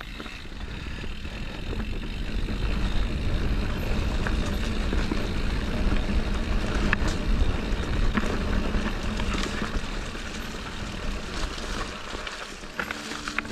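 Mountain bike riding on a dirt trail: a steady rumble of wind on the microphone mixed with tyre and trail noise, growing louder over the first couple of seconds as speed builds.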